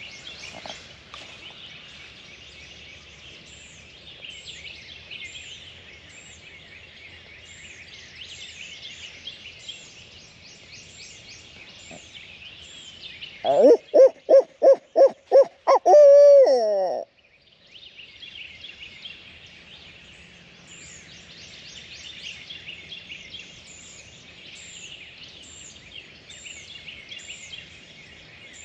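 Owl hooting close by in the manner of a barred owl: about eight quick, evenly spaced hoots about halfway through, ending in a long note that falls in pitch and cuts off suddenly. Behind it, songbirds chirp steadily.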